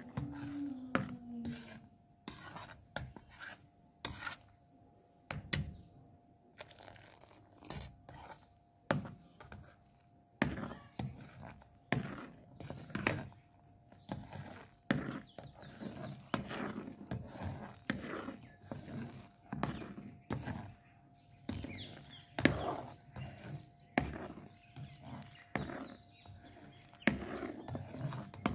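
Steel slotted spoon knocking and scraping against a metal pot about once or twice a second as milk is stirred while it curdles into chhena.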